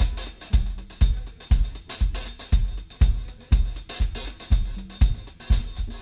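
Intro music: a drum-kit beat with a steady kick drum about twice a second, snare, and busy hi-hat and cymbal.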